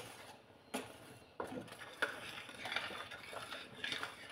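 A spoon stirring blended pepper in a stainless steel pot, with a few light knocks against the pot in the first two seconds, then soft scraping and stirring.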